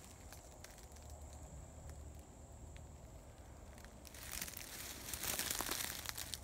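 Dry leaves crunching and rustling, growing louder from about four seconds in. Before that it is quiet, with a faint steady high whine.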